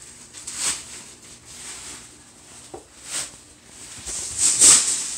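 A few soft rustling swishes, the loudest about four and a half seconds in, with a faint click near the middle: handling noise from a phone camera being moved about.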